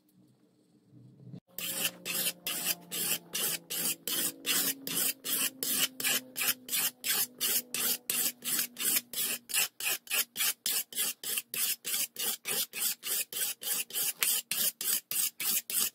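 Hand-sanding the wet steel blade of an antique butcher's cleaver with a sanding block: brisk back-and-forth rasping strokes, about three a second, starting about a second and a half in.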